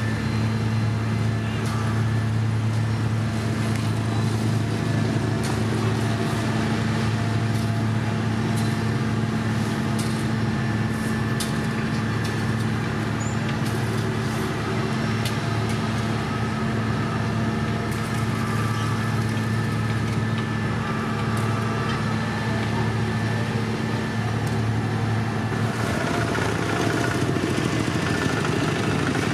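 Heavy diesel road machinery, a gravel paver with a tipper truck feeding it, running steadily with a low engine drone and occasional light clicks. The engine note shifts near the end.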